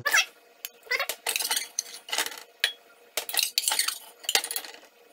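Metal spoon scraping and clinking against the inside of an aluminium pressure cooker as cooked chicken hearts are stirred in their liquid, in a rapid series of short, squeaky strokes.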